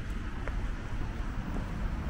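City street ambience: a steady low rumble of distant traffic mixed with wind on the microphone, with a faint click about half a second in.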